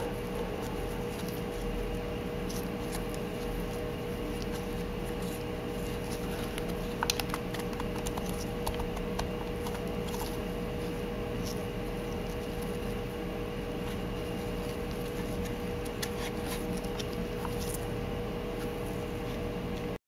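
A steady machine hum with a constant mid-pitched tone. A few light clicks about seven seconds in come from the plastic heater parts being handled.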